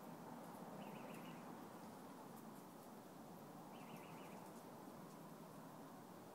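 Near silence: steady faint background hiss, broken twice by a brief faint high chirp, about a second in and again about four seconds in.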